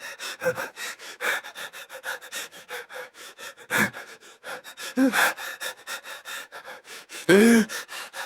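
A frightened man running, panting hard and fast with rapid footsteps, at about five or six short strokes a second. He lets out short voiced gasps or whimpers a few times, the loudest about seven and a half seconds in.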